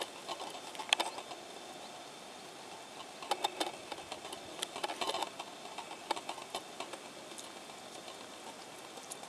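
Golden eagle tearing meat from a carcass with its beak: irregular sharp clicks and ripping sounds in short clusters, over a steady hiss.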